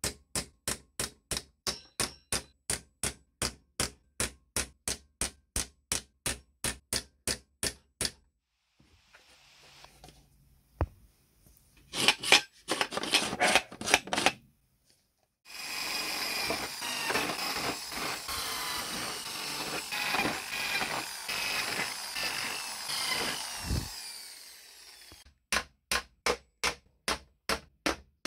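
Hammer tapping a punch to set small rivets in the seed drill's sheet-metal hopper, a steady run of light strikes about three a second. Midway comes a denser flurry of strikes, then several seconds of steady rasping noise, and the even tapping starts again near the end.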